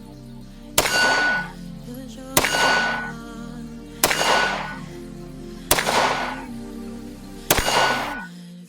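CZ Shadow 2 9mm pistol fired five times at a slow, even pace, about 1.7 s apart, each shot followed by a short bright metallic ring.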